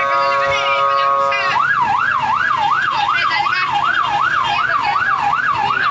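An ambulance's electronic siren in a fast yelp, rising and falling about two to three times a second. It starts about a second and a half in, after a steady held horn-like tone.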